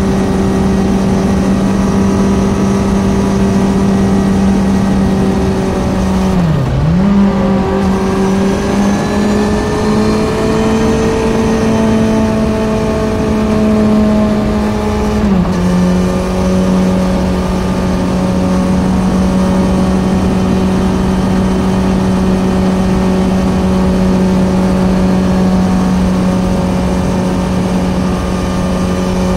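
Kawasaki Z900's inline-four engine through an Ixil SX1 full exhaust system, running at a steady pitch under way. The note dips sharply and briefly about seven seconds in, rises slightly, then steps a little lower about halfway through and holds steady.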